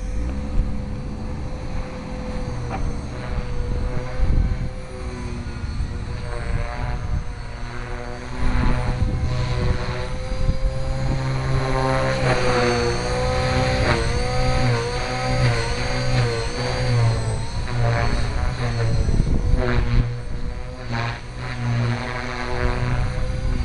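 Align T-Rex 450 Pro electric RC helicopter in flight: the whine of its brushless motor and spinning rotor blades. The pitch holds steady at first, then dips and recovers again and again through the second half as the rotor head is loaded by flips and hard stops.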